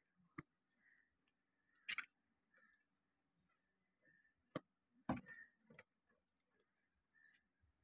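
Goats eating fresh green fodder: a handful of faint, sharp crunches and snaps of stems, scattered irregularly, with soft rustling in between.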